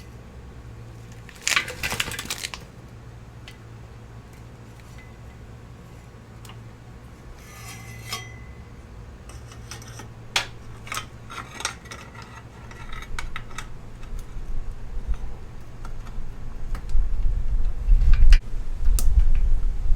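Light metallic clicks and clinks of a motorcycle drive chain and its master link being handled, with a short scraping rustle about two seconds in. A low rumbling noise builds up over the last several seconds.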